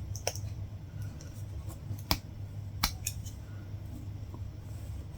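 Latch hook tool working yarn into the rug canvas: a few short, sharp clicks and snaps spaced irregularly, over a steady low hum.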